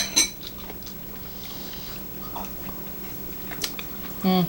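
Eating at the table: two sharp clicks at the start, then quiet chewing with a few faint ticks.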